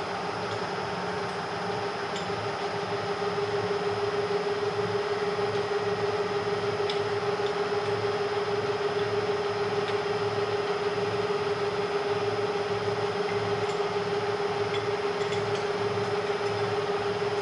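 Bridgeport Series 1 milling machine's 2 HP variable-speed J-head running steadily after the repair of its noisy drive, a hum with a steady whine, while its parts are tightened up with the machine running. It gets a little louder two or three seconds in.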